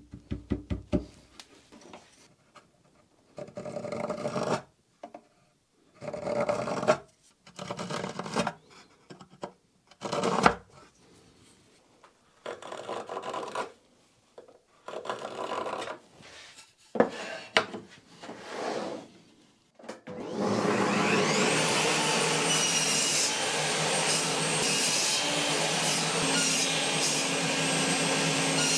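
Irregular scraping strokes of a knife paring hardwood, with wooden pieces rubbing and knocking as a cross brace is fitted. About 20 seconds in, an electric power tool's motor spins up with a rising whine and then runs steadily.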